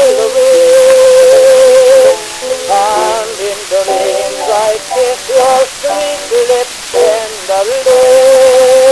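Early acoustic disc recording from 1901: a tenor voice singing with accompaniment. He holds a long note with vibrato, moves through a run of shorter notes, and settles on another long held note near the end, over the record's steady surface hiss.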